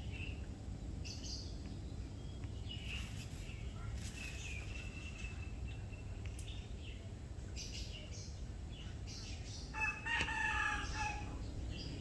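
A single drawn-out animal call about ten seconds in, lasting just over a second, over a steady low background rumble; fainter high-pitched calls come earlier.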